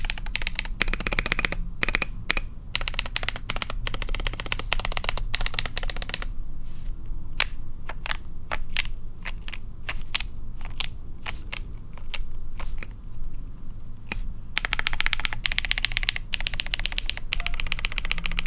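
Typing on a KBD67 Lite R2 mechanical keyboard with lubed KTT Rose linear switches on a POM plate and KAT Specimen keycaps. Fast continuous typing gives way about six seconds in to separate single keystrokes, then fast typing picks up again about fifteen seconds in.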